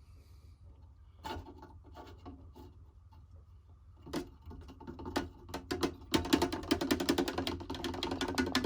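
Paintbrush worked inside a can of naphtha: a few light knocks, then from about two-thirds of the way in a quick run of scratchy scrubbing strokes.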